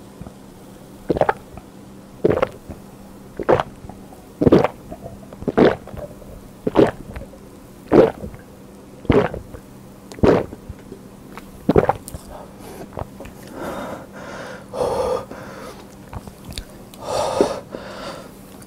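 A person gulping beer down in one go, close to the microphone: about ten loud swallows, one roughly every second. Once the mug is drained, a couple of heavy breaths follow.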